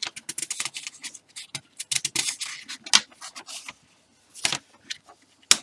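Crackling paper rustles as a large fold-out paper instruction sheet is unfolded and handled, with a sharper crack near the end.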